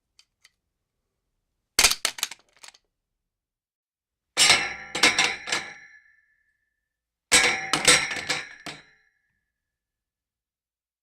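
Gun sound effects: three bursts of sharp metallic clacks and clicks, about two, four and a half and seven seconds in, the last two with a short metallic ring after them.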